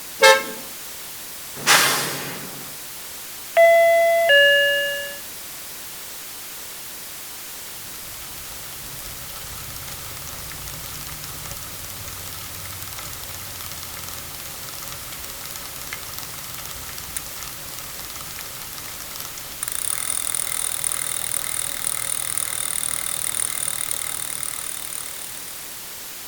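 A quick rattle of clicks and a short loud burst, then a bus's two-note stop-request chime, a falling ding-dong. A steady low vehicle rumble follows, joined about twenty seconds in by a louder high-pitched whine that fades out near the end.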